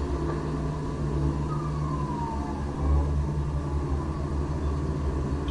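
A vehicle's steady low rumble, with a brief falling whine about a second and a half in.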